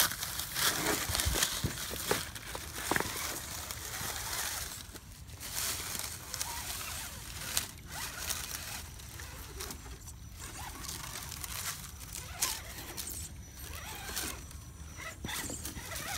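Dry leaves and grass rustling and crunching underfoot, with scattered clicks and knocks.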